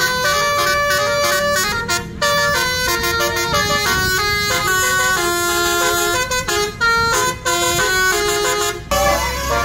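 Roof-mounted basuri musical air horn on a bus playing a tune: a run of steady horn notes that jump in pitch every fraction of a second, several sounding at once, with a few short breaks.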